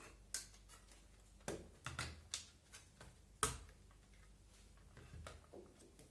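Scattered clicks and taps of hands working on an airsoft MP5 while pushing the stock's retaining pin through, the sharpest knock about three and a half seconds in.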